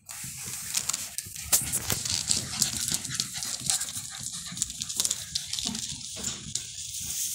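Standard schnauzer puppies playing together: many quick clicks and scuffles of paws and claws on the hard floor, mixed with small puppy noises.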